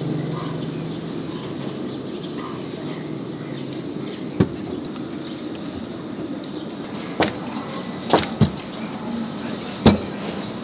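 Steady street-stall background noise, with a handful of sharp knocks and slaps from the second half on, the loudest near the end.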